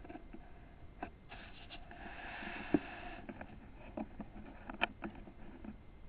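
Faint rustling with a few small clicks, and one sharper knock about two and three-quarter seconds in.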